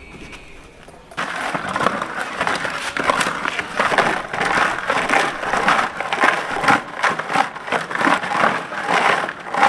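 Soil and small stones scraping and rattling in a plastic bucket with holes drilled in its bottom, shaken by hand as a sieve; it starts about a second in and goes on as a dense, gritty, irregular scraping.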